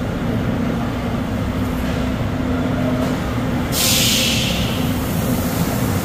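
Heavy concrete pump truck's diesel engine running steadily as the truck creeps forward. About four seconds in, a loud burst of air hiss from the truck's air brakes fades away over a second or so.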